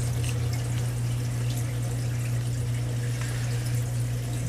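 Water trickling and splashing over a steady low hum, with faint scattered ticks: coral frags in a cup of dip being squirted with a baster.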